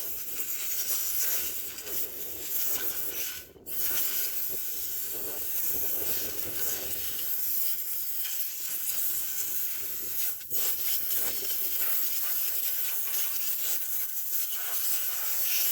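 Compressed-air blow gun hissing steadily as it blows out combine parts, cut off briefly twice: once about three and a half seconds in, and again about ten seconds in.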